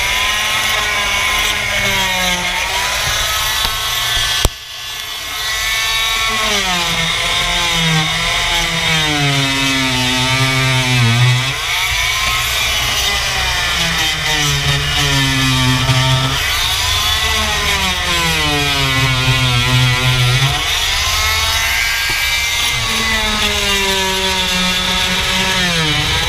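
Corded Harbor Freight oscillating multi-tool with a scraper blade working against old carpet glue on a fibreglass boat deck. Its motor pitch sags under load and recovers over and over, every few seconds, with a click and a brief drop in level about four and a half seconds in. To the user it sounds like the tool is dying.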